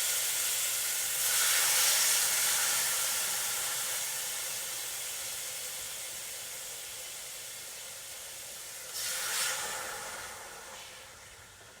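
Beef steak frying in a hot pan: a steady sizzle that swells about a second in and again near the end, then dies away.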